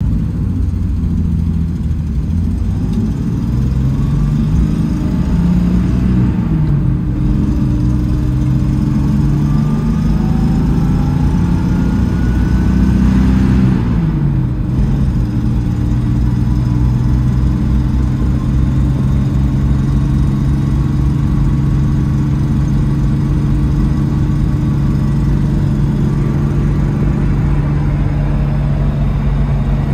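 1985 Toyota Land Cruiser engine heard from inside the cab while driving: it accelerates, with the engine note rising and falling back at upshifts about 6.5 and 14 seconds in, then holds steady at cruise. A faint whine rises with the engine while it pulls.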